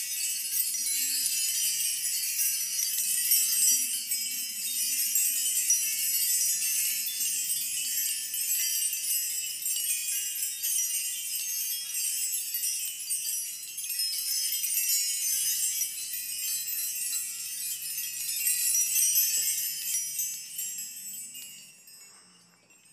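Key chime (key tree): dozens of old house and car keys hung on strings from a wooden bar, swept by hand so they jingle and clink against one another in a continuous bright shimmer that swells and eases, then dies away near the end.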